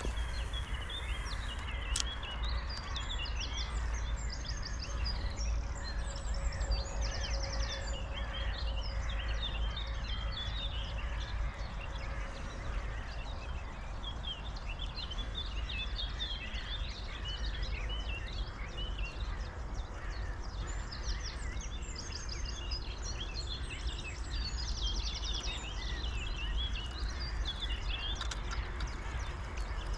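Several small birds singing and chirping, with quick repeated trills, over a steady low rumble. A faint steady hum sounds for a few seconds, about a third of the way in.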